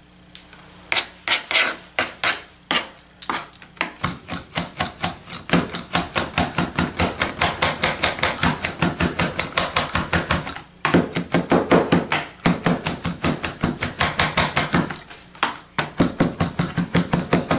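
Chef's knife rapidly mincing raw chicken meat on a plastic cutting board, the blade knocking on the board about five times a second. The first few strokes are slower and spaced out, and there are two short breaks in the rhythm.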